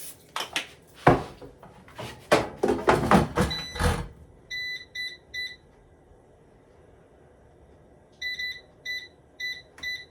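Several knocks and clatters of cookware being handled over the first four seconds, then short electronic beeps from an air fryer's control panel as its buttons are pressed to set it: three quick beeps, a pause, then about four more near the end.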